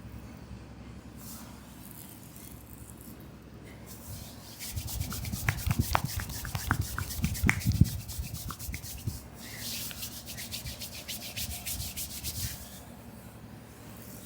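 Hands rubbing and working quickly over oiled skin in a shoulder and back massage, many fast strokes with soft thuds. It starts about four and a half seconds in, pauses briefly near nine seconds, and stops a little before the end.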